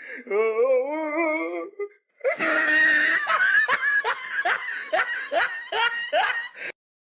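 A person laughing loudly: a wavering, drawn-out laugh, then after a short pause a run of rhythmic ha-ha bursts about two a second, which stops abruptly near the end.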